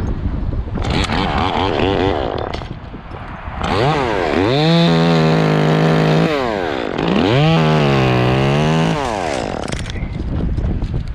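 Chainsaw engine revving: a short rev about a second in, then two long runs to full throttle, each rising quickly, holding a steady high pitch for about two seconds and dropping back.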